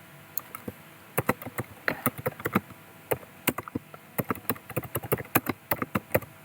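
Typing on a computer keyboard: a run of quick, irregular key clicks that grows dense about a second in.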